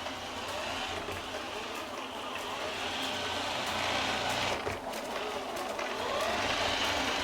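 Robot vacuum cleaner running and sucking up pea flakes off the floor: a steady whirring with faint rises and falls in pitch and scattered small clicks.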